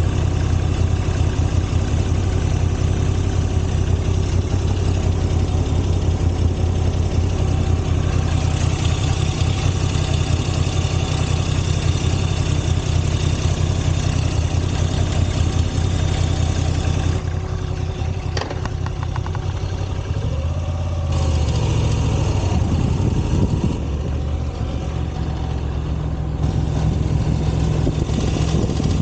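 Moto Guzzi V85 TT's air-cooled transverse V-twin running at idle, with an awful noise from an exhaust header cover that is half loose because of one of its screws and vibrates. About two-thirds of the way in the engine speed briefly rises and falls before settling back to idle.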